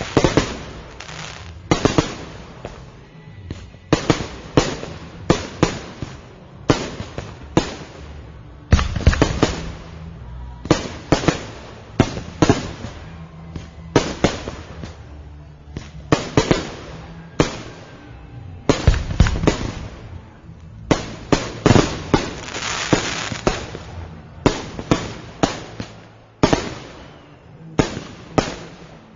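Fireworks exploding in a constant barrage of sharp bangs, one or two a second. About two-thirds of the way through comes a denser stretch of crackle.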